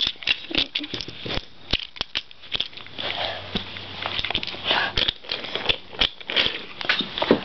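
Wooden toy trains and wooden track pieces clicking and knocking together as they are pushed and handled, giving an irregular run of small clacks several times a second.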